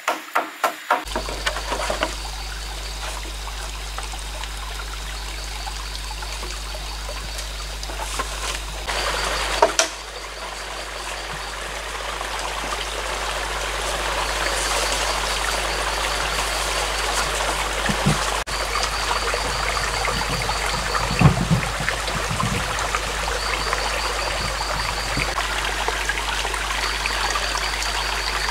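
Shallow forest stream trickling and running over rocks, a steady watery rush. A few sharp knocks come near the start, and a high, pulsing trill comes and goes several times.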